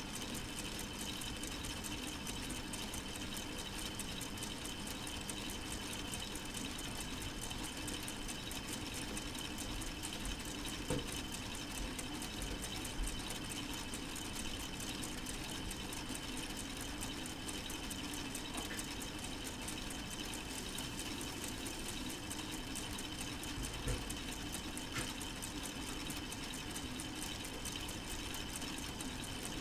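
Solar-powered K'nex model four-cylinder engine running: a steady whir of plastic gears and rods turning, with a few faint clicks.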